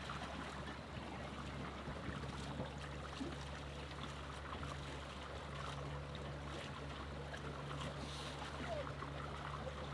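Water rushing and trickling steadily along the hull of a small sailing yacht under way.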